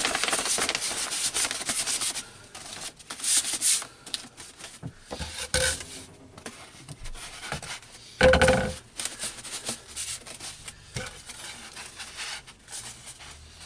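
A vinyl decal sheet with its application tape being rolled up by hand: irregular rustling and rubbing, busiest in the first two seconds, with a few louder scrapes, the loudest about eight seconds in.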